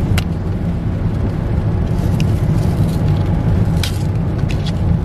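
Steady low rumble inside a car's cabin, with a few sharp clicks and crinkles as a PopSocket's cardboard-and-plastic blister pack is handled.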